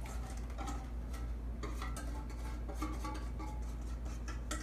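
A spatula scraping and tapping against a stainless steel mixing bowl as wet batter is scraped out into a second steel bowl: a steady run of small clicks and scrapes.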